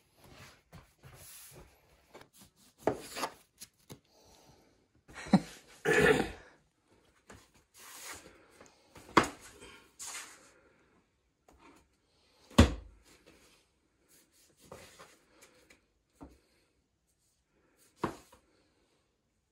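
Bread dough being cut and handled on a wooden work table: irregular thuds and knocks as the knife and dough pieces hit the boards and the scale, with quieter rubbing and scraping between them. The heaviest thump comes about twelve and a half seconds in.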